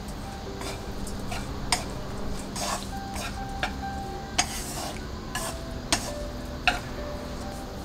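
Seasoned fernbrake stems being stirred and tossed in a pan, with irregular sharp clicks against the pan, the loudest about two, four, six and seven seconds in.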